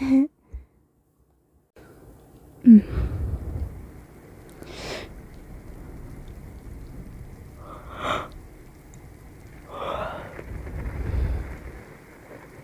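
Rain sound effect, a steady hiss starting about two seconds in, with two low rolls of thunder, one soon after the rain starts and another near the end. A few short breathy sounds, like sniffs, come and go over the rain.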